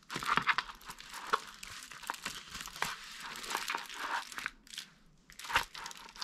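Clear protective plastic film on a diamond painting canvas crinkling under hands pressing and smoothing it: a run of light crackles, easing off for a moment about two-thirds of the way through, then one sharper crackle.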